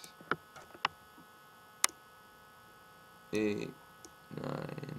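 Steady electrical mains hum, with a few sharp clicks in the first two seconds. A man's short wordless voice sounds come twice, a little past three seconds and again near the end.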